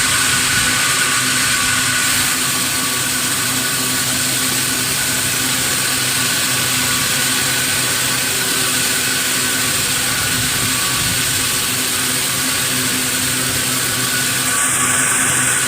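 Sawmill machinery running steadily, a constant high whine over a low hum.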